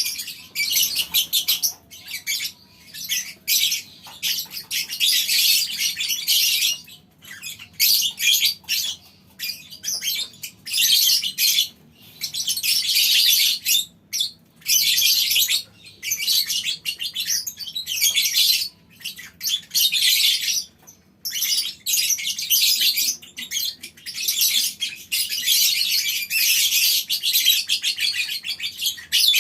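A colony of lovebirds chattering shrilly in long, rapid runs broken by brief pauses: the long 'ngekek' chatter that keepers use as a master recording to set other lovebirds singing.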